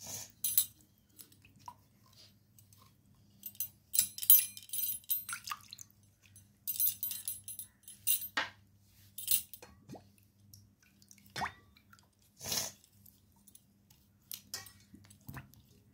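Small clay pots being washed by hand in a steel basin of water: irregular splashes, drips and wet rubbing, with a few short, sharp knocks.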